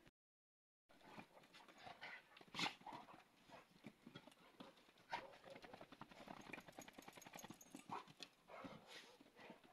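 Faint scuffling and padding of a Gaddi dog and a smaller dog's paws on dirt as they play-fight, a stream of quick irregular scuffs with a few louder ones. The sound drops out completely for under a second at the start.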